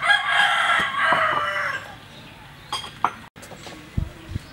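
A rooster crowing once, one long call of about two seconds, followed by a few light knocks.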